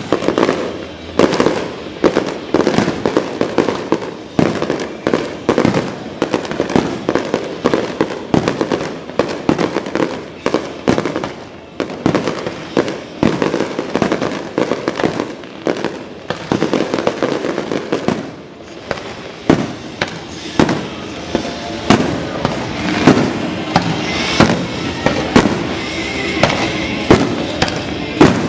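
Aerial fireworks bursting in a continuous barrage, sharp bangs following each other every second or so with crackling in between.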